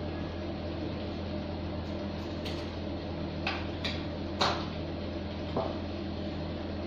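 Steady low hum throughout, with a handful of light clinks and knocks, about five, between two and a half and five and a half seconds in, from a glass and kitchen things being handled while oil is measured out for cake batter.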